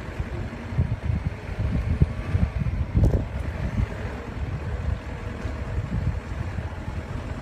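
A 4x4 driving slowly over a rough, stony riverbed: an uneven low rumble of tyres and suspension over rocks with repeated jolts, a heavier knock about three seconds in, and wind on the microphone.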